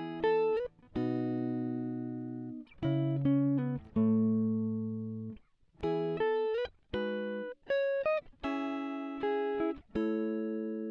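Music: a clean plucked guitar plays a slow run of chords and single notes, each left to ring and fade, with a few notes sliding in pitch.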